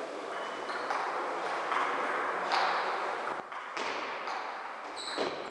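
Table tennis rally: the celluloid ball clicking sharply off the bats and the table, a string of single taps a fraction of a second to a second apart.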